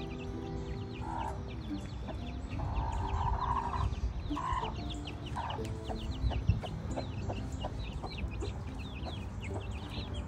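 Aseel chickens clucking in short low calls, with a few louder calls in the first half, over a steady run of quick, high, falling chirps.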